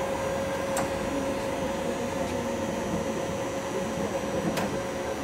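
Feeler turret lathe running with a steady machine hum and an even whine, with two sharp clicks, about a second in and near the end, as buttons on its control panel are pressed.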